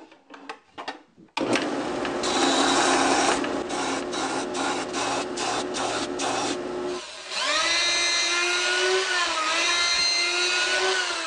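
A belt sander runs while a plywood bearing flange is sanded against the belt, rasping in quick repeated strokes about three a second. About seven seconds in, a plunge router takes over, spinning up to a steady high whine that dips briefly as it cuts into the plywood wheel. A few light clicks come first, as a sheet-metal guard is fitted to the sander.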